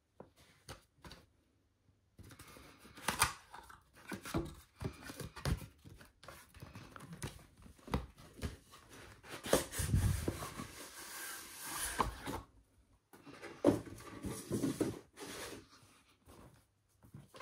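Packaging of a graphics card being handled and opened by hand. A few faint clicks come first, then from about two seconds in there is continuous irregular rustling and scraping with sharp clicks and knocks.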